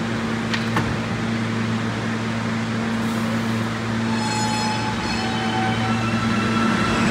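R160A subway train standing at the platform, humming steadily with its doors open. About four seconds in a short chime sounds as the doors close, and near the end the train's motors begin to whine and the sound grows louder as it starts to pull out.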